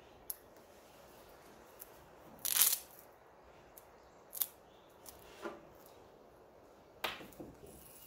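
Handling sounds of a self-adhesive LED strip light being pressed along a painted wooden railing: its plastic strip rubbing and scraping against the wood, with a few short scrapes and clicks, the loudest about two and a half seconds in.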